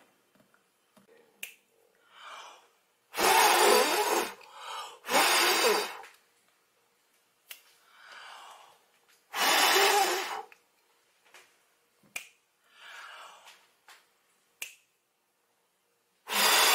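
Breath blown from the mouth in four hard puffs, each about a second long, with softer breaths in between and a few faint clicks.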